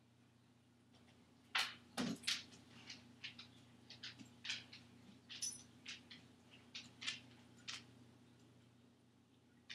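A dog getting down off a kitchen counter: a few sharp knocks and clatters about one and a half to two and a half seconds in, then scattered lighter clicks for several seconds, over a faint steady hum.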